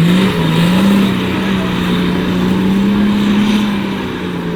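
Off-road 4x4's engine revving hard and held at high revs under load, easing off slightly near the end.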